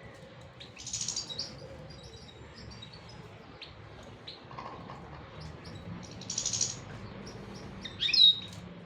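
A small bird chirping: a burst of rapid high chirps about a second in, scattered single chips, another rapid burst at about six and a half seconds, and a louder sharp call falling in pitch near the end.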